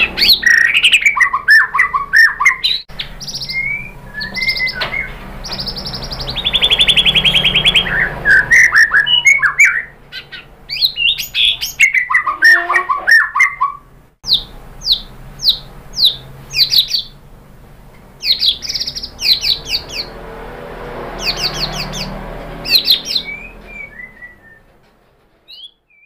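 White-rumped shama (murai batu) singing a varied song of clear whistles, fast rattling trills and quick series of sharp, downward-sweeping notes in rapid phrases. The song tails off and stops shortly before the end.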